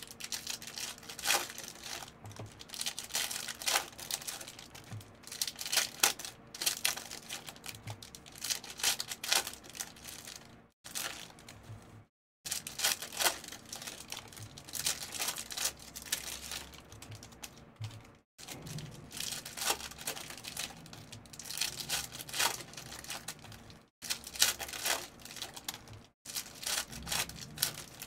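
Trading-card packs being torn open: plastic foil wrappers crinkling and ripping, with cards being handled and flipped through in quick, irregular rustles and clicks.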